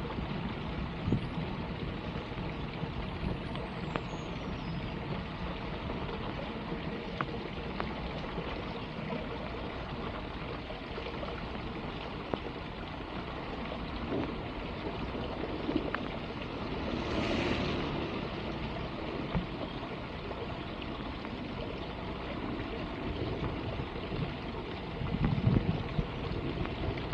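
Steady rush of floodwater flowing into a street sewer drain, swelling briefly about two-thirds of the way through.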